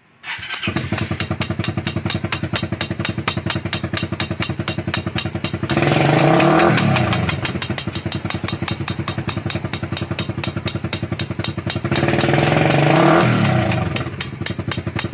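Small motorcycle engine running with a rapid, even putter. Twice, about six and twelve seconds in, it swells louder for a second or so as the pitch rises and falls, like the throttle being opened and let back.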